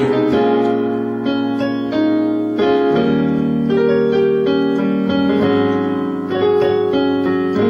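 Digital piano playing sustained chords in D-flat major, moving to a new slash chord about once a second, with a melody on top.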